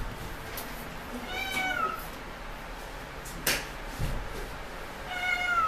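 Great Dane puppy whining twice, short high-pitched whines about a second and a half in and again near the end. A single sharp knock comes between them, about three and a half seconds in.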